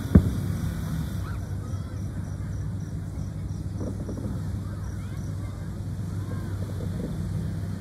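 Aerial fireworks going off: one sharp bang just after the start, then a steady low hum with faint, softer pops about four seconds in.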